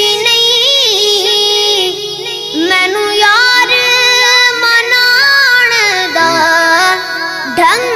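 Background music: a Punjabi devotional naat, sung by a high voice in long, ornamented lines over a steady held note.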